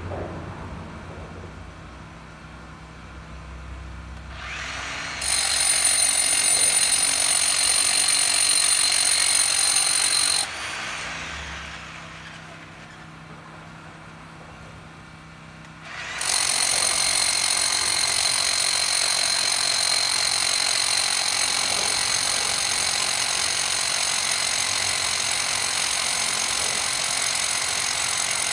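Power drill boring into a concrete bridge abutment, running steadily with a high motor whine for about five seconds, stopping, then running again from about halfway through.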